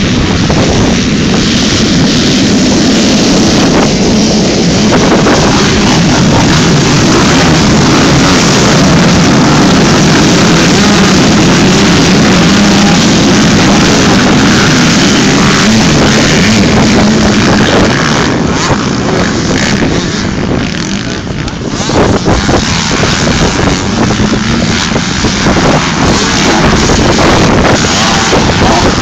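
A pack of motocross bikes racing by, many engines running loud together. The sound eases briefly a little past two-thirds of the way through, then comes back up.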